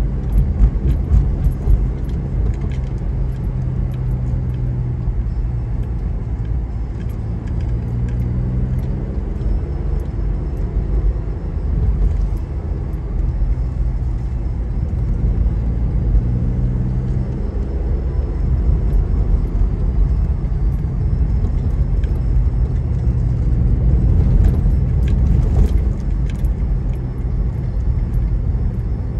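Car driving, with a steady low engine hum and tyre rumble. The engine note shifts up and down a few times as the car slows and speeds up, and there are light rattles and clicks throughout.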